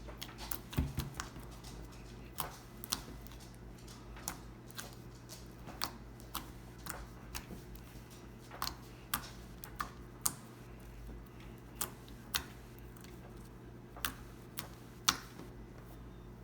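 Fluffy slime being squeezed and poked, giving irregular sharp clicks and pops, roughly one every half second to a second.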